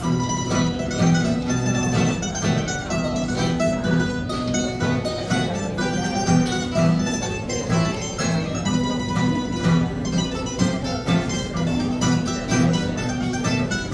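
Live acoustic string trio of two acoustic guitars and a mandolin playing an Italian tune, the guitars keeping a steady chordal rhythm.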